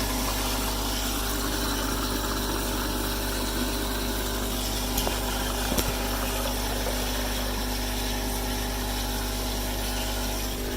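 Steady motor hum with several even tones, over a steady rush of water running from the just-opened drain valve; two light clicks about five and six seconds in.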